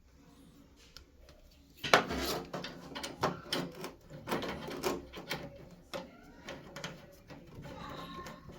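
Irregular knocking and clattering that starts sharply about two seconds in, the first knock the loudest, then goes on unevenly.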